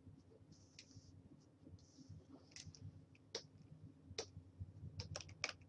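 Faint clicking and light scratching from a digital painter's input devices: soft stylus strokes on a graphics tablet early on, then a run of sharper clicks from keys or the pen in the second half, over a low steady computer hum.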